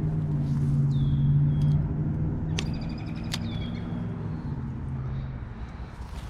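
A motor's steady low hum that fades out about five seconds in, with a few short high bird chirps over it.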